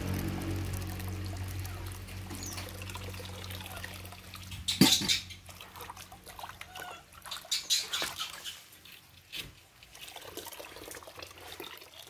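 Water poured in a thin stream from an aluminium kettle into a plastic basin of water, trickling and splashing, loudest in the first few seconds and then fading. Several short sharp sounds stand out, the loudest about five seconds in.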